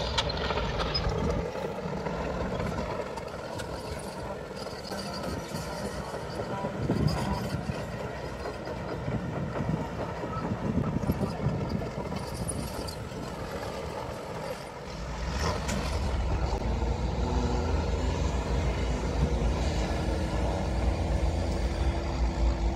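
Mixed outdoor noise of a crowd and engines, then, about two-thirds of the way in, a heavy off-road trial truck's engine working hard as it climbs a steep dirt slope: a dense, steady deep rumble with a constant hum above it.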